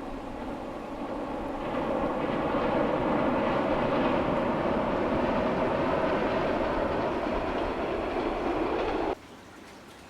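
Diesel railcar running along the track, its noise swelling about two seconds in and holding steady, then cut off abruptly near the end.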